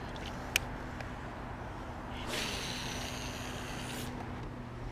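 Electric trolling motor running with a steady low hum. A sharp click comes about half a second in, and a whirring rasp from about two to four seconds in as line runs off the baitcasting reel.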